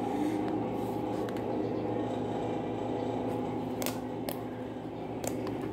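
Fluffy slime mixed with small pom-pom balls being poked and squeezed by hand, giving a handful of sharp, really clicky pops over a steady background hum.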